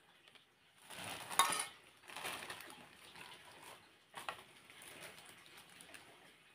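A metal spoon scraping and clinking against a stainless-steel pot of sauce as it is spooned into small plastic bags. There are a few short bouts of handling, the sharpest clink about a second and a half in.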